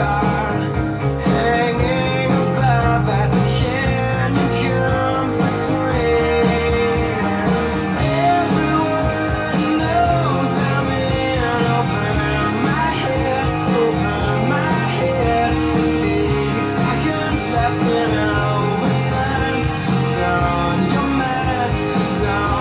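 A song with guitar and a singing voice, played back from a Type II cassette recorded with Dolby C on a Nakamichi CassetteDeck 2.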